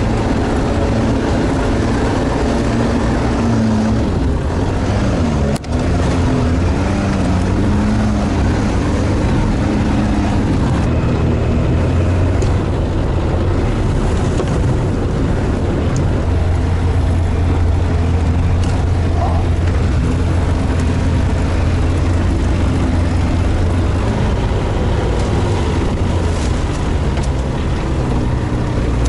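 An all-terrain vehicle's engine running steadily while under way, its pitch wavering for the first several seconds and then holding even, with a brief drop about five and a half seconds in.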